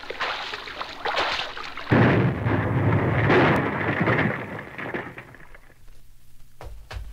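Explosion sound effect: a sudden loud blast about two seconds in, rumbling and dying away over about three seconds. Near the end, a rhythmic music beat starts.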